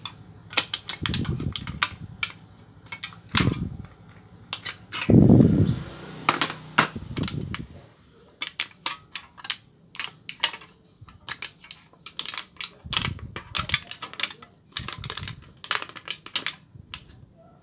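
Thin copper foil sheet, salvaged from the back of a phone LCD, crinkling and crackling as it is bent and shaped by hand, in a stream of irregular sharp crackles. A few dull handling thumps come in the first half and once more near two-thirds of the way through.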